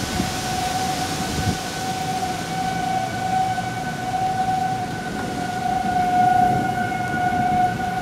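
Outdoor tornado warning sirens sounding a tornado warning: a steady wail held at one pitch that swells and fades slightly, with a low rumble of noise beneath it.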